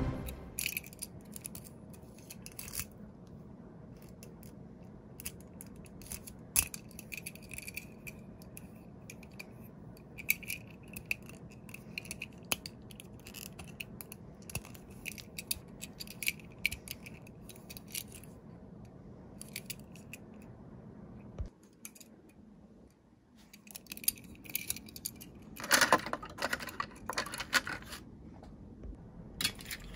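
Light clicks, rattles and scrapes of a die-cast Tomica ladder fire engine being handled, its plastic ladder turned and extended. Near the end, a run of louder clicks and knocks as the small cars are set into the plastic shelves of a toy carrier truck.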